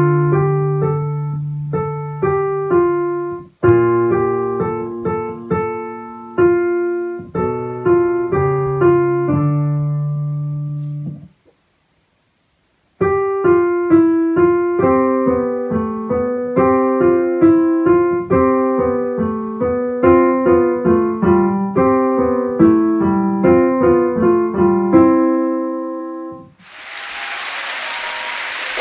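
A digital piano played solo. A simple piece over held low bass notes ends about 11 seconds in; after a short silence a second piece of quicker, even notes follows and stops a few seconds before the end. Near the end a steady rushing noise begins.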